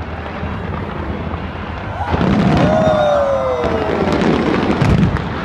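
Fireworks display going off over a crowd: a continuous rumble, with deep booms about two seconds in and again near the end, sharp pops, and a long falling tone in between.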